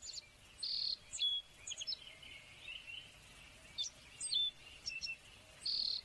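Songbirds chirping in a morning scene: a scatter of short, high chirps and whistles, with a brief high trill about a second in and another near the end.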